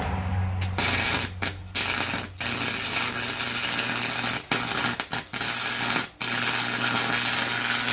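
Electric arc welder crackling and sizzling as a bead is laid on thick steel gears, with a steady hum under it. The arc stops for a moment several times and then strikes again.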